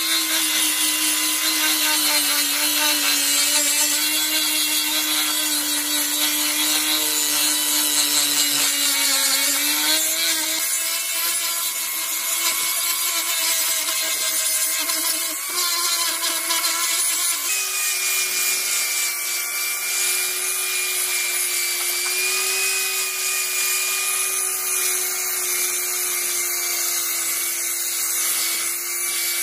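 Angle grinder running with an abrasive disc against a steel cleaver blade, grinding the rust off. A steady motor whine sits over a grinding hiss. The whine sags a little about ten seconds in and steps up in pitch partway through.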